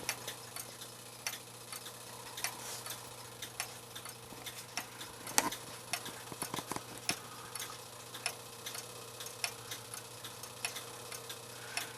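Light, irregular clicks and ticks from a worn, modified OG clock movement as its parts are moved and worked, over a steady low hum.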